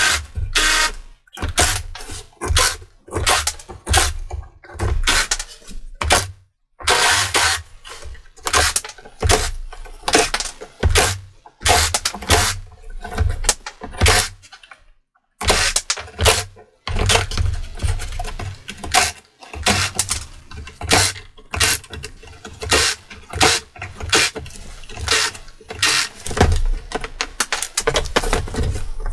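Cordless jigsaw cutting through 6mm MDF in stop-start bursts, with short pauses about six seconds in and again about fifteen seconds in.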